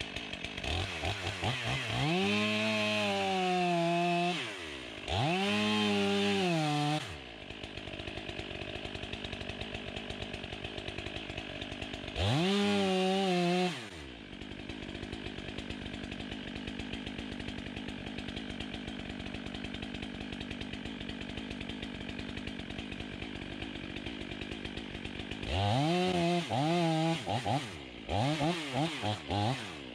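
Two-stroke chainsaw idling, revved up four times and each time held high for a second or two before dropping back to idle; near the end it gets a run of short, quick blips of the throttle.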